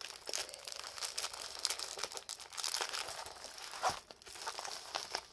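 Clear plastic packaging of a diamond painting kit crinkling and rustling in irregular small crackles as it is handled, with one sharper click about four seconds in.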